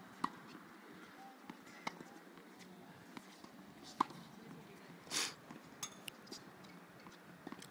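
Tennis racket striking the ball during a rally: sharp single pops, the loudest about four seconds in, with fainter ticks between them and a short rasping noise about a second after the loudest pop.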